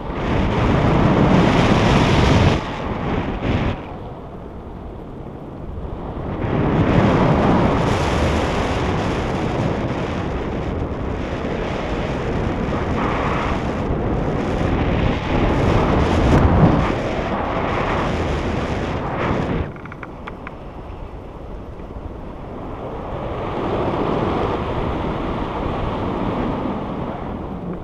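Airflow of a paraglider in flight buffeting the camera microphone, in surges: loud for the first couple of seconds, again from about six seconds to nearly twenty where it drops off suddenly, then swelling again near the end.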